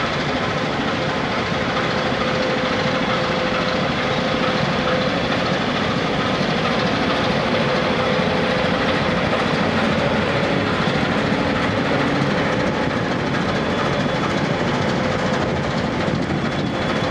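Inland container freighter's 1320 hp diesel engine running steadily as the ship moves slowly past at close range, a constant drone with a steady tone held through it.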